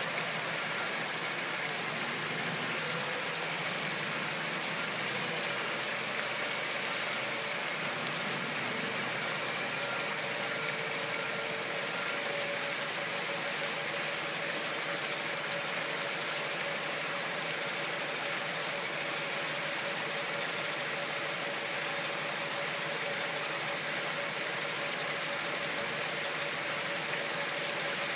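Steady rushing noise of flowing floodwater, even and unbroken, with a faint steady tone joining about five seconds in.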